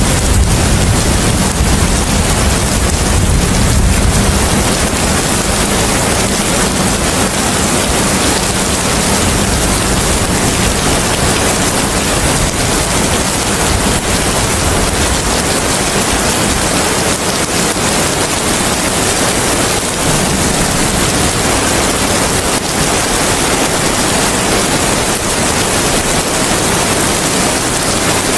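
Steady, heavy rain with wind, a dense even hiss. A deep low rumble sits under it for the first few seconds and then fades away.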